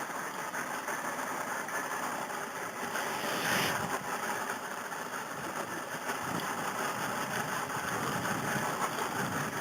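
Boat outboard motors idling, a steady engine noise that swells briefly about three and a half seconds in.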